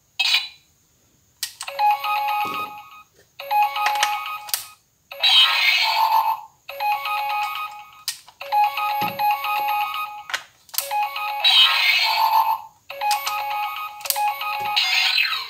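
Auldey DX Rescue Driver toy's electronic standby sound: a ringtone-like beeping melody from its speaker, repeating in short phrases every couple of seconds, with a few sharp clicks in between.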